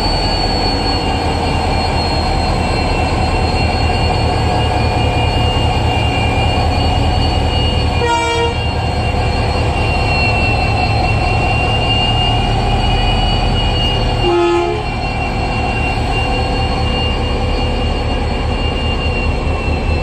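WDP4D diesel locomotive running steadily close by, a deep engine drone with a thin steady high whine over it. Two short horn toots sound, about eight and fourteen seconds in.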